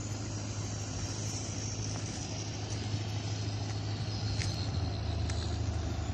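A steady low engine hum, like a motor vehicle idling, with a faint high whine and two light ticks near the end.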